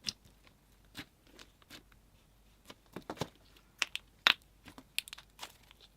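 Slime being handled: scattered short sticky clicks and crackles, the loudest about four seconds in.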